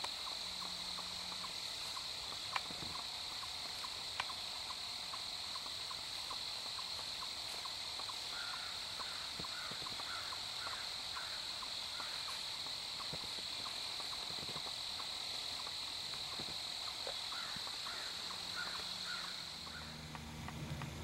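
Quiet outdoor ambience: a steady high-pitched drone, like an insect chorus, under a regular run of faint chirps. A few light clicks sound in the first few seconds.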